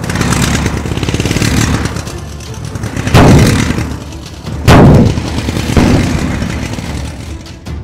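Cartoon sound effects: a rumbling vehicle engine, then three heavy booms in the second half, the middle one the loudest.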